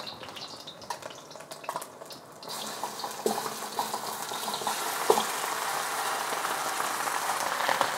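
Raw chicken wings tipped from a metal bowl into hot oil in a wok: a faint sizzle of green onion and ginger frying jumps to a much louder, steady sizzle about two and a half seconds in as the wings hit the oil, growing slightly louder toward the end. A few light knocks sound over the sizzle.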